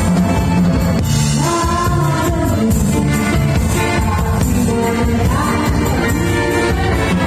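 Live band playing a disco dance number, a woman singing lead into a microphone over electric guitar, keyboard, bass and drum kit, all amplified through the PA.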